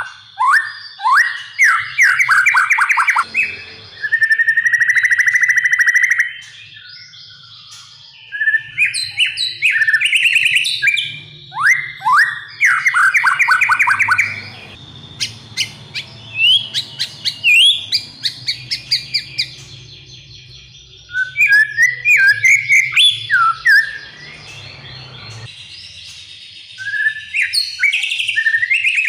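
White-rumped shama (murai batu) singing a loud, varied song: long ringing trills, fast runs of down-slurred whistles and sharp clicking notes, in phrases broken by short pauses.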